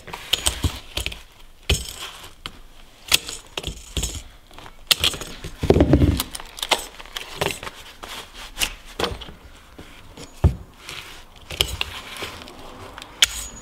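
Claw hammer knocking and prying at a smashed mobile phone's metal plate and circuit board, with irregular metallic clinks and bits of broken glass clinking and crunching. A heavier thump comes about six seconds in and a sharp knock near the end.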